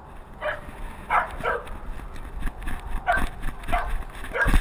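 A dog barking at a running person as it chases them: about six short, sharp barks spread unevenly over a few seconds.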